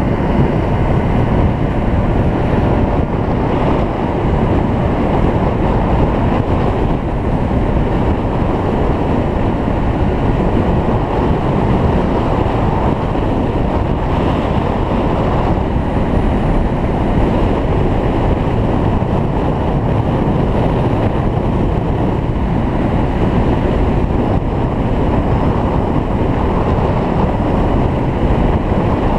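Yamaha BW's scooter riding at a steady cruising speed: a continuous rush of wind on the microphone mixed with the scooter's engine and tyre noise, even and unchanging throughout.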